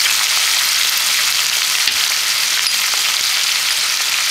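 Steady sizzling from a pan of rasam cooking on the stove: fried tomatoes with boiled tur dal and tamarind paste, rasam powder just added.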